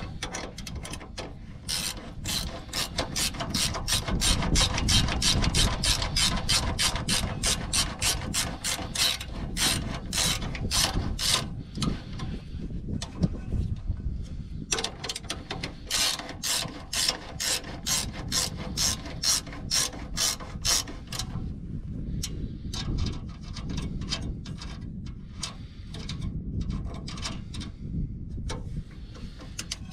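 Hand ratchet wrench clicking in rapid runs as it tightens the bolt of a stainless steel exhaust band clamp. The clicking pauses for a few seconds about halfway through, resumes, then comes in shorter, sparser strokes near the end.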